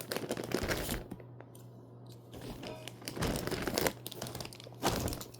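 Rustling and crinkling handling noises in a few short bursts as batteries are rummaged for, over a low steady hum.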